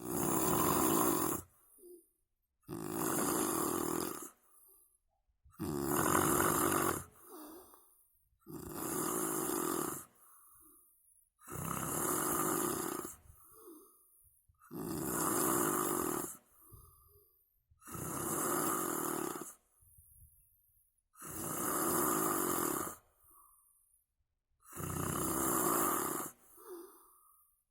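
Snoring in a steady rhythm: nine loud snores about three seconds apart, each followed by a quieter, shorter breath.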